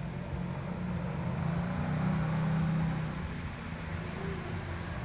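A motor engine running steadily, swelling louder for a moment about two to three seconds in.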